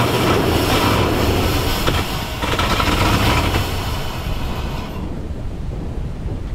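The petrol V8 of a ZIL-131 army truck running briefly, then dying away about five seconds in; it does not keep going, so another start has to be tried.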